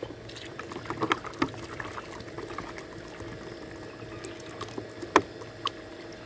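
Water pouring from a plastic bottle into a plastic bowl, topping it up, with a few sharp clicks along the way, the loudest about five seconds in.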